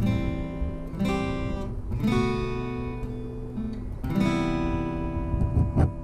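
Background music: acoustic guitar strumming chords, a new chord struck every second or two.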